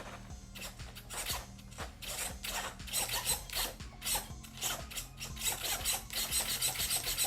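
AGF A80BHSW 36 kg brushless steering servo sweeping the wheels rapidly back and forth, each sweep a short rasping whir, running faster on a 7.4-volt supply. The sweeps come quicker and more even in the second half, about six a second, over a faint steady hum.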